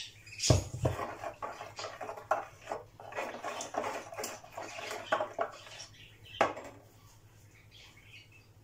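A metal spoon clinking and scraping against a glass mixing bowl as yoghurt, water and salt are stirred, in a run of quick clicks. A heavy thump comes about half a second in, and a sharp knock near the six-and-a-half-second mark, after which it is quieter.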